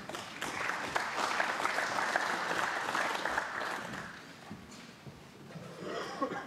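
Snooker audience applauding; the clapping dies away after about four seconds.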